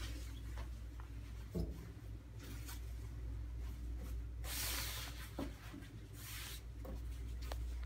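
Surgical gown being folded and smoothed by hand on a drape-covered table: soft fabric rustling and sliding, with two louder rustles about four and a half and six seconds in and a few light taps. A steady low hum runs underneath.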